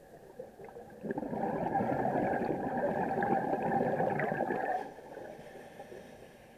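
Scuba diver's exhalation through a regulator underwater: a bubbling gurgle that starts about a second in, runs for nearly four seconds, then dies down.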